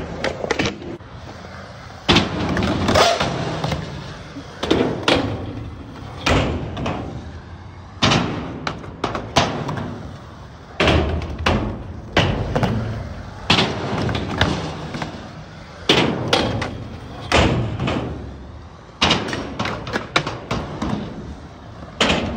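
Skateboard wheels rolling on concrete, broken by sharp clacks of the board popping, landing and striking ledges and rails, about every second or two.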